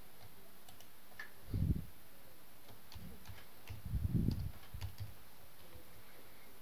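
Computer keyboard typing: scattered light key clicks, with a few soft low thumps, one about one and a half seconds in and a cluster around four seconds in.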